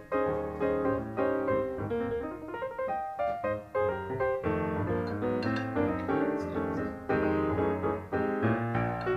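Piano music: a quick, busy run of notes over chords and a bass line.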